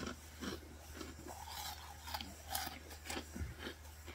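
A person chewing food close to the microphone: irregular short chewing and mouth sounds, over a steady low hum.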